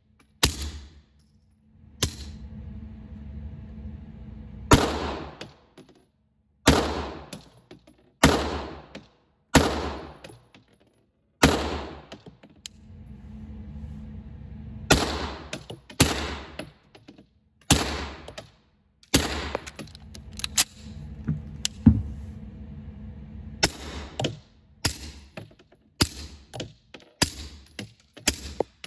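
Suppressed 9mm Sig P226 Legion pistol firing S&B 150-grain subsonic rounds through CGS Mod9 suppressors, first the short Mod9SK and then the full-size Mod9FS. About two dozen shots come in strings, mostly about a second apart, with a pause of a few seconds near the middle, over a steady low hum.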